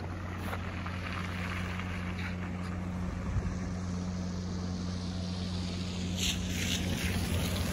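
Winter street ambience: a steady low engine-like hum under wind noise, with a few brief scrapes about six seconds in.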